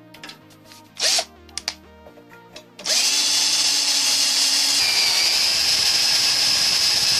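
Handheld electric drill boring into the end of an aluminium extrusion. It gives one short burst about a second in, then runs steadily from about three seconds in, its whine dipping slightly in pitch partway through as the bit cuts.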